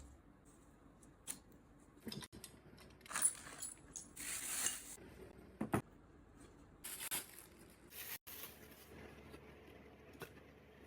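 Light handling sounds: scattered clicks and knocks of hard plastic and metal parts, with a few short rustles, one of them longer about four seconds in.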